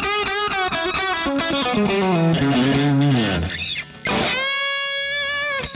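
Distorted electric guitar played through a Line 6 Helix preset modelled on an EF86-preamp amp: a quick lead run, a long slide downward in pitch, then a held note that stops sharply near the end.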